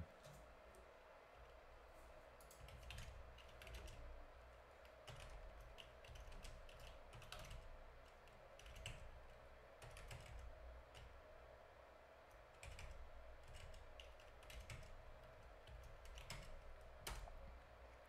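Typing on a computer keyboard: faint, irregular keystrokes coming in short runs, over a low steady hum.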